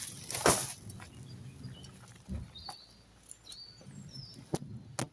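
A loud rustle about half a second in from the woven plastic garden bag of dry hydrangea flower heads, then a dull thump a little after two seconds. A few short high bird chirps follow, and near the end come two sharp clicks of secateurs snipping stems.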